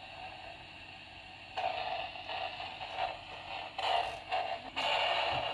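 Toy walkie-talkie giving out static: a band of hissing crackle that starts about a second and a half in and comes and goes in several bursts, with no voice getting through, just the crackle the user complains of.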